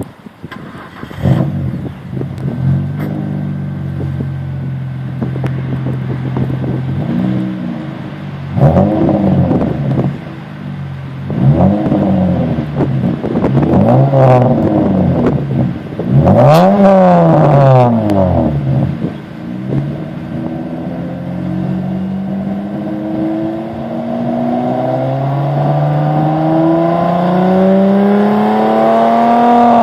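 Turbocharged Hyundai Tiburon 2.7-litre V6 heard through its exhaust. The engine starts about a second in and idles steadily. It is then blipped several times in quick revs that rise and fall. Near the end the revs climb slowly and steadily.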